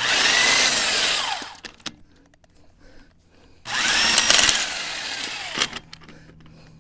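Power tool spinning lug nuts off a truck wheel in two bursts, each a motor whine that rises and then falls away as it runs and stops.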